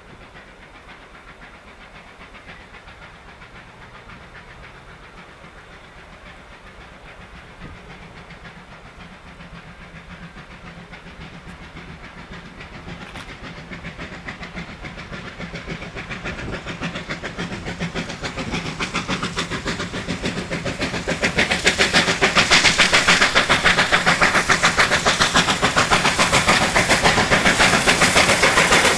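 Victorian Railways R class Hudson steam locomotive R761 approaching under power, its fast, even exhaust beats growing steadily louder until it passes close, loudest over the last several seconds.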